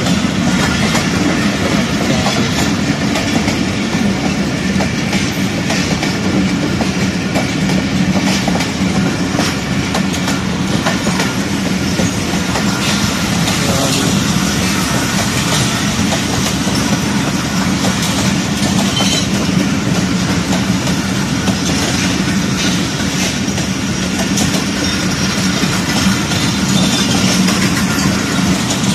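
Pakistan Railways passenger coaches rolling past at close range: a loud, steady rolling noise with the repeated clickety-clack of wheels over rail joints.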